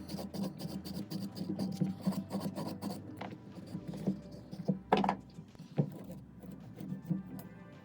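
Rubbing and scraping with many small clicks, and one sharper knock about five seconds in: SKS rifle parts being handled and scrubbed clean.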